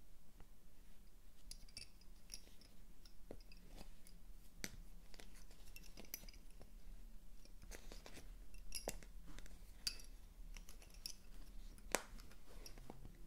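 Wooden lace bobbins tapping and clicking against each other as they are picked up and moved, in faint irregular clicks with one sharper click near the end.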